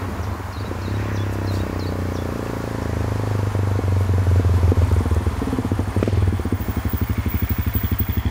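An engine running and growing steadily louder, settling into a rapid, even throb about two-thirds of the way in.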